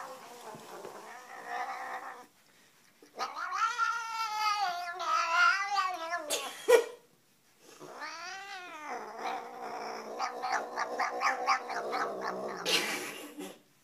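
Black domestic cat yowling in wavering caterwauls. There is a lower call at first, a long warbling yowl about three seconds in, and a single rising-and-falling call near the middle. A run of short, stuttering yowls follows before it stops near the end.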